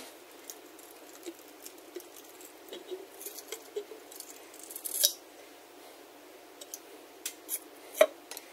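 A screwdriver prying the steel rear differential cover off a Dana 35 axle housing: light scrapes and small metal clicks, with a sharper clack about five seconds in and another about eight seconds in.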